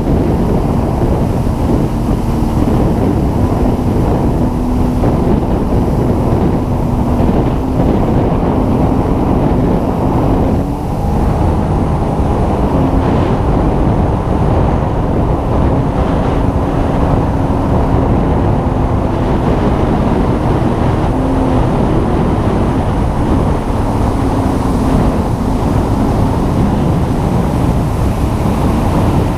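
Sea-Doo personal watercraft engine running steadily at speed, its note wavering up and down, with heavy wind noise on the microphone and rushing water.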